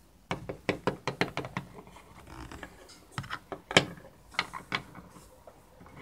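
Plastic Littlest Pet Shop figurines clicking and knocking against a hard shelf as they are picked up and set down by hand: a quick run of clicks in the first second and a half, then scattered taps.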